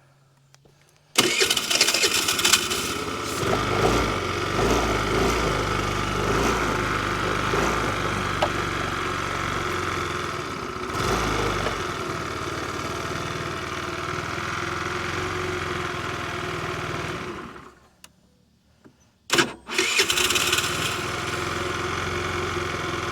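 50cc scooter engine catching about a second in and running for about sixteen seconds, then dying; after a short sputter it fires again and runs on.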